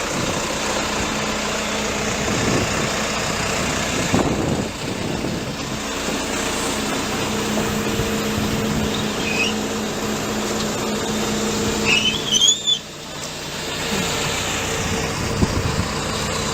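Komatsu WB146-5 backhoe loader's diesel engine running steadily. A few short high squeaks come near the end, just before the sound briefly drops and comes back.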